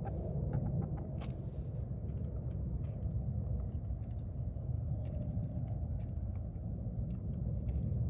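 Hens pecking at a plastic chicken feeder: faint scattered taps, about a second in and several more in the second half, over a steady low rumble.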